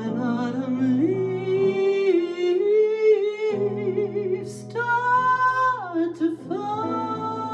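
A woman singing a slow jazz ballad, accompanied by a grand piano. Her long held notes waver with vibrato over sustained piano chords.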